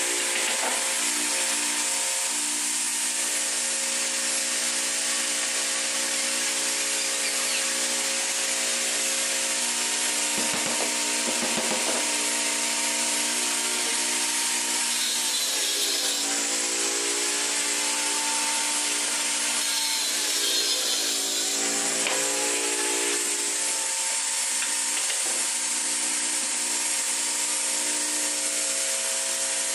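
Bench-mounted circular saw (homemade table saw) running steadily, its motor pitch sagging briefly twice as it takes the load of cutting a laminated board. A few knocks sound in the first half.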